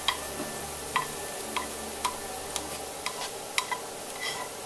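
Metal tongs clicking and scraping against a nonstick frying pan as fried chopped onions are pushed out into a bowl: a string of sharp ticks about every half second over a steady low hum and hiss.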